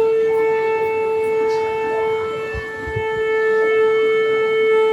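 Conch shell (shankh) blown in one long, steady, held note.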